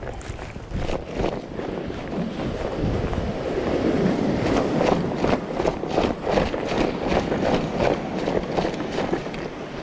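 Wind buffeting the microphone in gusts, with footsteps on concrete and scattered knocks and clicks from carried gear as someone walks along a breakwater.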